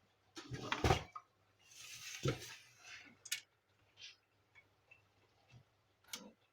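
Hands handling and fitting the plastic parts of a laser printer: a clatter, a longer scrape with a knock about two seconds in, then several short clicks and taps.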